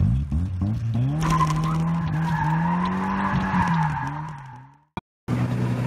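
Drift car's engine revving up about a second in and held high while the tyres squeal in a slide, fading out near the end. After a brief gap, a steady engine drone starts.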